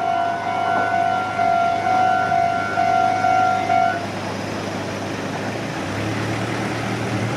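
Japanese railway level crossing's electronic warning bell ringing its repeated "kan-kan" tone, cutting off about four seconds in as the alarm ends after the train has cleared. A low hum comes in about six seconds in.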